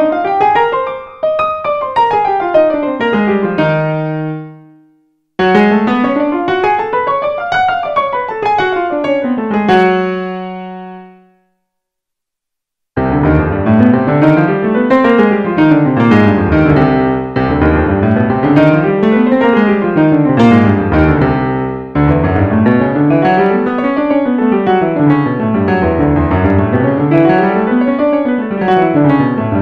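Digital keyboard with a piano sound playing an E-flat major scale up and down twice, each run left to ring out, then after a short silence faster repeated up-and-down scale runs an octave lower.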